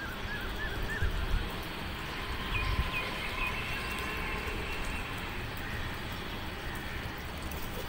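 Outdoor ambience with faint bird chirps: a few short chirps near the start and a few more about three seconds in, with a couple of soft low bumps in between.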